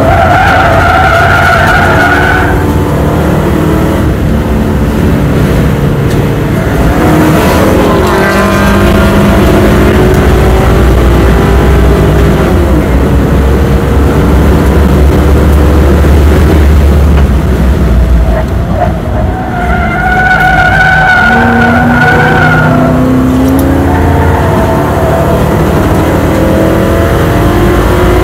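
Lincoln Mark VIII's V8 running hard at high revs, heard from inside the cabin, its pitch rising and falling with throttle. Tyres squeal through the corners at the start and again about two-thirds of the way through.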